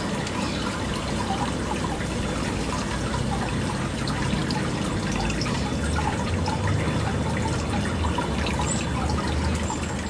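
Steady outdoor background noise, an even rushing hiss with some low rumble, with faint, brief high chirps of birds scattered through it.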